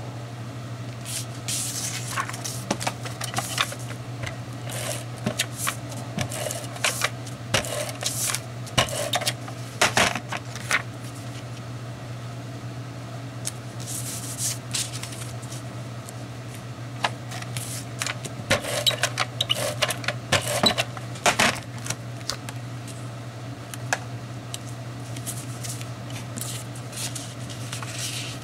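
Paper and cardstock being handled and slid across a scrapbook layout: irregular rustles, scrapes and taps, in two busy spells, over a steady low hum.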